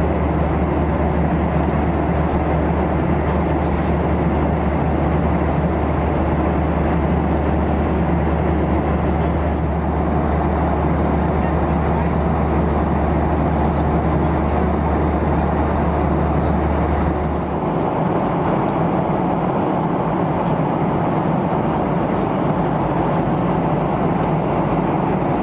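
Boeing 737-800 cabin noise in cruise: the steady rush of air and CFM56 engines heard from a seat near the front of the cabin. A deep low drone under the rush stops abruptly about two-thirds of the way through, leaving the steady rush.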